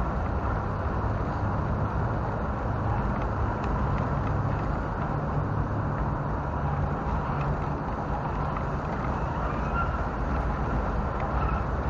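Steady rumble and rattle of a Tamiya radio-controlled Toyota Land Cruiser 40 driving over rough pavement, picked up by a camera mounted on the model, with road traffic in the background.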